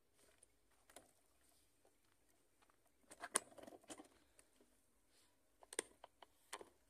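Faint, irregular footsteps and clothing rustle of a person walking on a paved path, with scattered light clicks.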